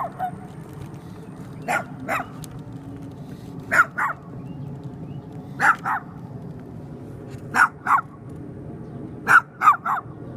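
Small dog barking repeatedly in sharp, high-pitched pairs about every two seconds, with four quick barks near the end, over a steady low background rumble.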